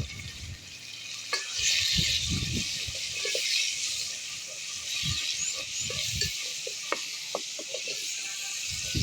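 Food sizzling in a hot pan, a steady hiss, with scattered knocks and scrapes of stirring.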